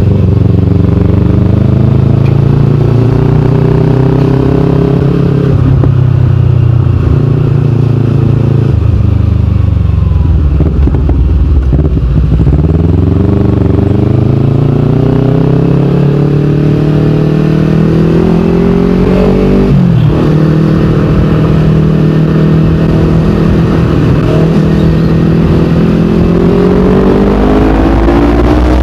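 Kawasaki Ninja 250fi's parallel-twin engine running loud through a KP16 aftermarket exhaust while riding. The engine note climbs steadily under acceleration and drops back several times as the rider shifts gear, with the sharpest shift about two-thirds of the way in.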